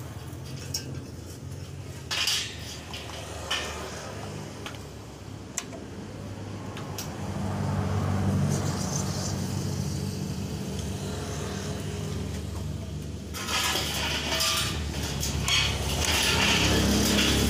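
Ndeve 160 A inverter stick welder being tried out: a steady low hum with a few sharp metallic clinks, then about thirteen seconds in a dense crackling hiss starts and carries on, the sound of the welding arc.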